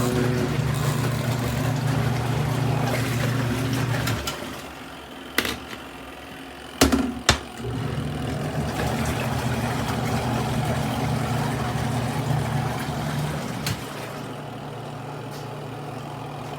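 Electric motor of a Costway twin-tub portable washing machine running with a steady low hum, cutting out for a few seconds after about four seconds, then starting up again. A few sharp knocks sound during the pause.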